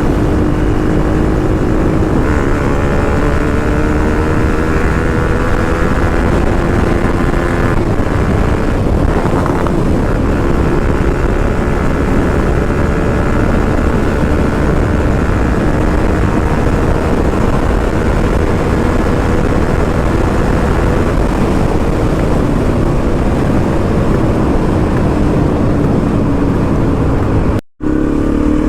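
Bajaj Pulsar NS200 motorcycle engine running at a steady cruise under heavy wind rush on the rider's microphone, its pitch sagging and rising only slightly. The sound cuts out for an instant near the end.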